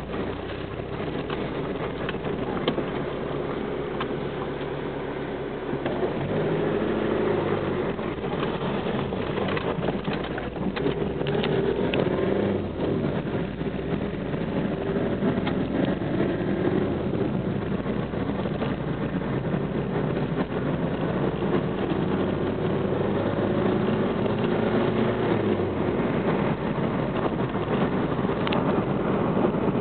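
Car engine and road noise heard from inside the cabin while driving, the engine's pitch rising and falling with acceleration and gear changes.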